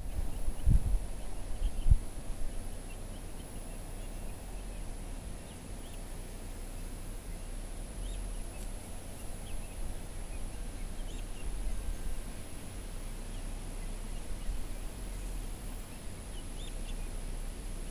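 Young chickens giving scattered faint chirps and peeps over a steady low rumble, with a couple of soft thumps in the first two seconds.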